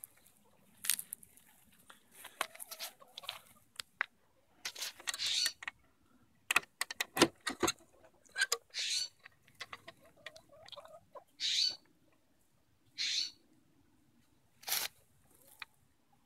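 Handling noise from opening a wooden chicken nest box: a cluster of sharp clicks and knocks from the hook latch and lid about halfway through, and short rustles of the wood-wool nesting, with a few soft low hen calls between.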